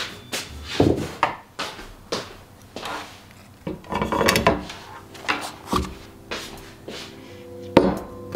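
Kitchenware being handled and set down on a wooden table: a string of separate knocks and clatters, roughly one every half second to a second.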